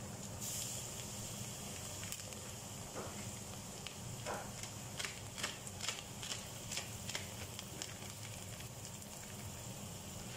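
Sliced hotdogs, onion and garlic sizzling quietly in oil in a pot, with a run of short crackles and clicks around the middle.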